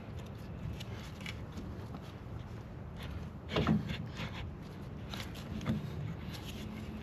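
A metal scissor jack being handled and set on a wooden block: scattered light knocks and scrapes of metal on wood, with a louder clunk about three and a half seconds in and a smaller one near six seconds.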